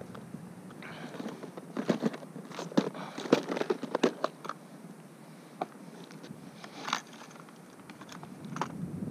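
Clear plastic tackle boxes clattering and clicking as one is pulled out of a soft lure bag and opened, the lures shifting inside. A quick run of sharp clicks in the first half, then a few single clicks.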